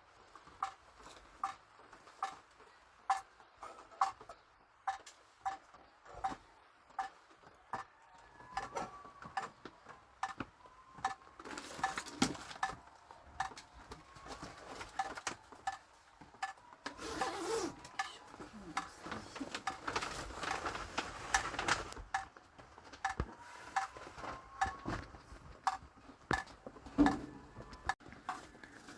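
Metal spoon clinking and scraping against metal cookware in a steady rhythm, about two ringing clinks a second, with a rougher scraping stretch in the middle.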